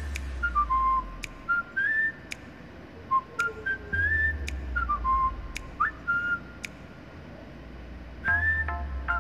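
Background music with a whistled melody stepping and sliding between notes, over a bass line that drops in and out and sharp percussive clicks.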